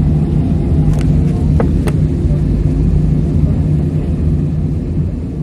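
Steady low drone of an airliner heard from inside the passenger cabin: engine and airframe noise, with a few faint clicks about a second and two seconds in.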